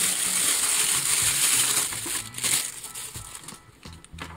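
Clear plastic wrapping around a wristwatch crinkling as it is handled. The crinkling is loudest for the first two and a half seconds, then thins to a few faint crackles.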